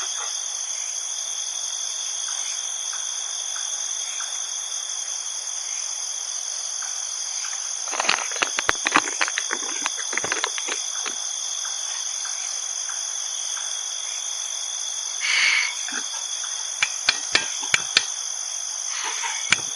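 Night-time chorus of crickets and other insects, a steady high-pitched trilling at several pitches at once. Clusters of sharp clicks and knocks come about halfway through and again near the end, with a brief rustling burst between them.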